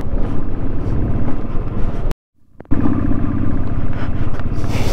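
Motorcycle engine running under way on a rough off-road track. The sound cuts out completely for about half a second a little after two seconds in, then carries on.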